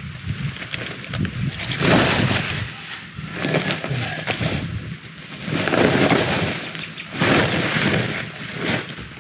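Sacks of dry buko (young coconut) shells being tipped onto a compost pile: rustling and clattering, with three louder crackling rushes as the material pours out, about two seconds in, around six seconds and again just after seven.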